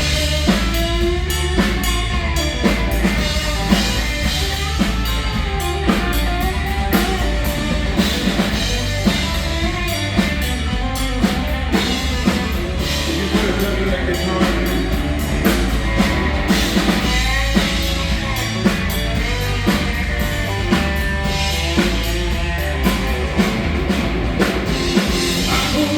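Country-rock band playing an instrumental break: drum kit keeping a steady beat with bass and guitar, no vocals.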